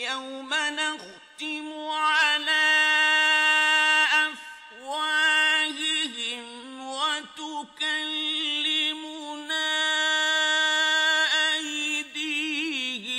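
A male Qur'an reciter chanting in a high voice in the melodic mujawwad style, holding long notes with wavering ornaments and pausing briefly for breath between phrases.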